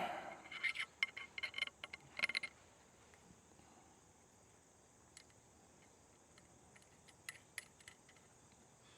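Metal hardware clinking and rattling as a spring bolt is handled and fitted: a quick run of bright clinks over the first two seconds or so, then a few faint, scattered clicks.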